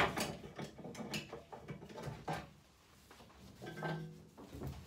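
A cargo strap being unhooked and pulled off a steel Snap-on tool chest: a sharp clack at the start, then scattered clicks and the rustle of webbing over the metal lid.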